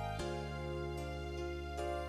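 Background music of sustained instrumental notes, with a new chord coming in about a quarter second in and again near the end.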